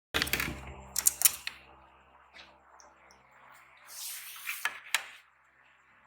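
Small objects handled on a desk: several sharp clicks and taps near the start, a short scrape or rustle about four seconds in, then two more clicks, over a faint low hum.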